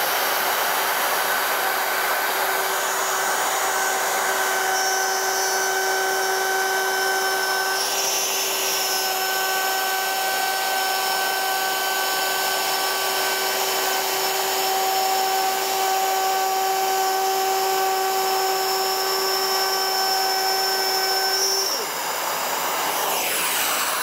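Festool plunge router running steadily with a high motor whine as it cuts a groove in MDF, while a Parkside PPWD 30 A1 wet-and-dry workshop vacuum extracts the dust through a hose taped to the router. About two seconds before the end, the router switches off and its whine dies away, leaving the vacuum running.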